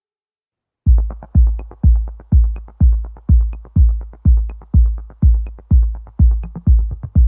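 Electronic music: after about a second of silence, a deep kick drum starts on a steady beat, about two beats a second, with light clicks over it.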